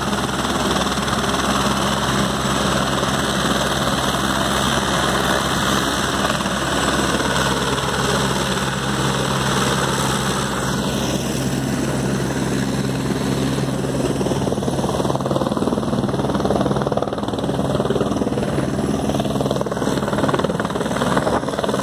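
A helicopter's engine and rotor running steadily as it lifts off the road into a low hover and moves off. The higher-pitched part of the noise fades over the second half as it draws away.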